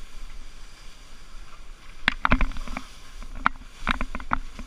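Skis sliding and turning through wet, slushy spring snow, a steady hissing swish, broken by clusters of sharp clattering knocks as the skis chatter over the rough snow, about two seconds in and again near the end.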